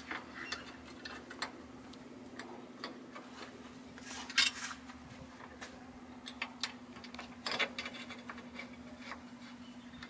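Scattered light metallic clicks and taps of a 10 mm combination wrench on the hood latch bolts as the latch is secured to its mount, over a steady low hum.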